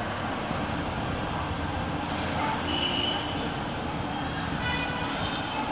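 Steady city street traffic noise: a constant hum of passing cars and scooters, with a few brief high-pitched tones about two and a half seconds in.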